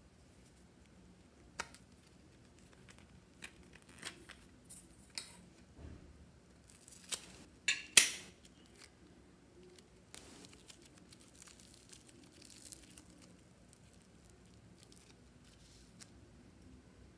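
Plastic slime mold being handled and a wedge of clay popped out of it onto slime in a glass bowl: a scatter of sharp clicks and crackles, the loudest a pair of snaps about eight seconds in, then fainter crinkling.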